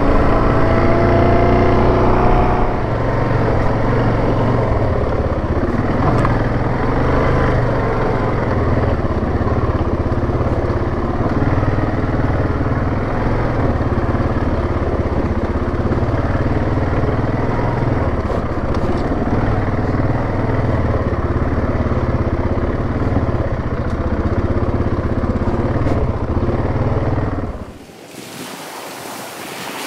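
The single-cylinder engine of a Yamaha Grizzly 700 ATV running under way, revving up over the first few seconds and then holding steady. Near the end the engine sound drops away suddenly, leaving a steady hiss.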